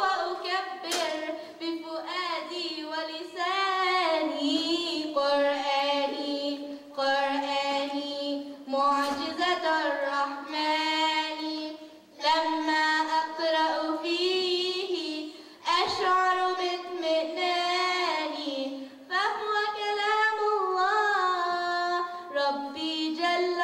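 A female voice singing an Arabic nasheed unaccompanied into a microphone, with long held notes that bend and waver, broken by two short breaths about halfway through and again a few seconds later.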